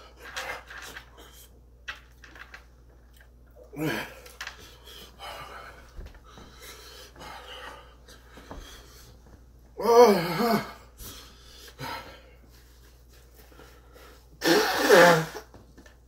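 A man panting and wheezing, breathing hard through the burn of an extremely hot chili chocolate bar. Three louder strained vocal outbursts break through, the loudest about ten seconds in and near the end.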